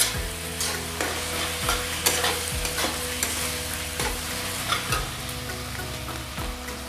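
A metal spatula stirs and scrapes an onion-tomato masala frying in oil in a metal kadai, with irregular clinks of the spatula against the pan over a steady sizzle. The ground spices have just gone into the masala and are frying.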